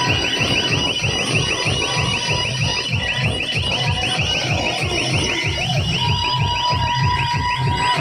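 DJ sound system blasting a sound-check track: a rapid alarm-like siren effect, about seven rising chirps a second, over heavy pounding bass beats.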